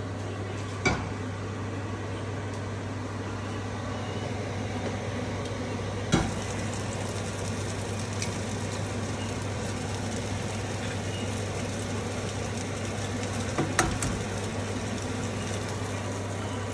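Egg ghotala sizzling as it fries in a pan, over a steady low hum. A spatula knocks against the pan three times, loudest about six seconds in.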